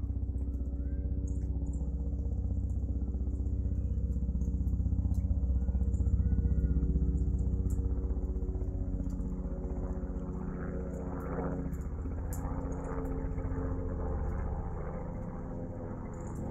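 Light two-bladed helicopter flying over, its rotor chop and engine making a steady low drone that grows louder to a peak about six seconds in and then eases slightly.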